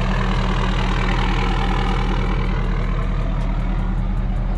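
Ford F-250 pickup truck's engine running with a steady low drone.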